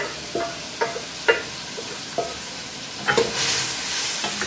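Metal cookware clinking sharply about six times as masala is scraped out of a metal pot into a karahi. About three seconds in, a frying sizzle swells as the karahi is stirred.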